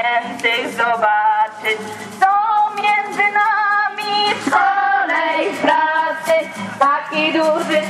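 A song with music: a woman's voice leading the melody, with other voices and accompaniment beneath it.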